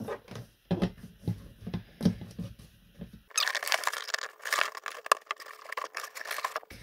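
A plastic UK three-pin plug and its cable handled and fumbled at a socket: irregular plastic clicks and knocks with cable rustle. About three seconds in, the sound turns thinner and the clicks come faster and denser.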